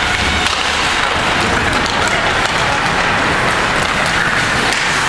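Ice hockey arena ambience during play: a steady noisy wash of skates on the ice and spectators, with a few faint sharp clicks of sticks or puck.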